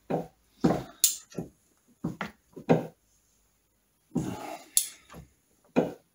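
A torque wrench with a long deep socket being heaved on a primary-drive nut being tightened to 80 ft-lb: a run of separate short metallic clicks and knocks, about ten in six seconds, unevenly spaced.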